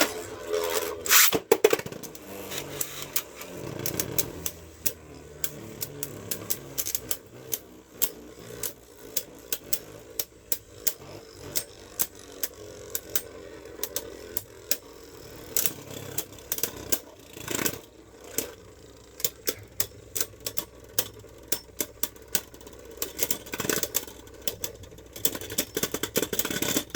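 Jet Wyvern and Mirage Fafnir Beyblade Burst tops launched into a plastic stadium with a loud burst about a second in, then spinning and clashing: a low steady spinning hum under many sharp clicks as the tops strike each other and the stadium walls.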